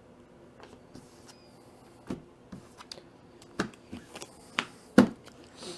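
Playing cards and game pieces being handled on a tabletop: a string of short, sharp taps and clicks as cards are set down, the loudest about five seconds in.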